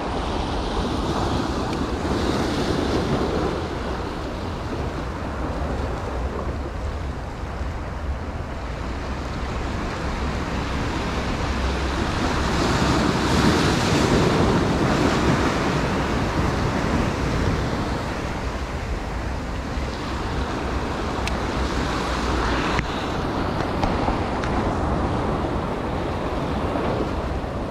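Sea waves surging and breaking against shoreline rocks, with wind rumbling on the microphone. One wave swells and breaks loudest about halfway through.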